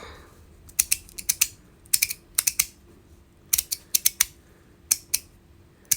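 Metal magnetic slider fidget being slid back and forth, its pieces snapping together in sharp clicks that come in quick runs of about four.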